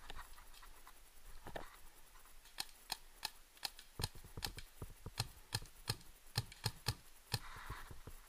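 Paintball markers firing in the woods: a string of sharp pops, about three a second, starting a couple of seconds in and running until near the end.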